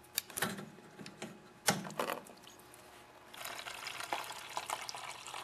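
A few clicks of handling as the fuel line is worked off the carburetor, then, a little over three seconds in, a steady thin stream of mixed gas from the snowblower's fuel tank splashing into a plastic tub as the tank drains.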